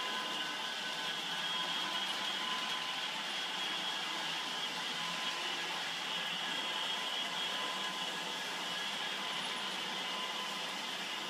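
Steady whir of small electric motors, with thin high-pitched whines held throughout and no change in level.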